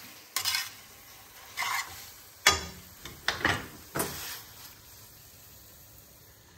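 Metal tongs scraping and knocking against an aluminium frying pan as spaghetti is stirred and tossed: about six short strokes in the first four and a half seconds, then only a low hiss.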